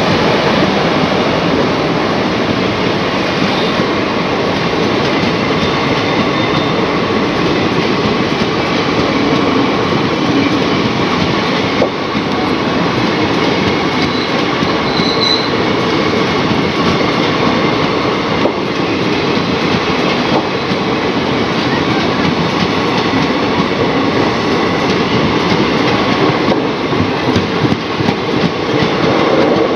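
Passenger express train rolling past close by, its wheels running on the rails in a loud, steady noise that does not let up.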